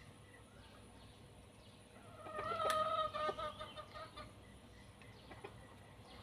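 A chicken clucking in a quick run of short calls for about two seconds, starting about two seconds in.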